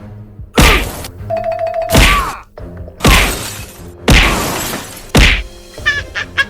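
Background music with five heavy thuds, about one a second: digging sound effects, with a quick run of short ticks near the end.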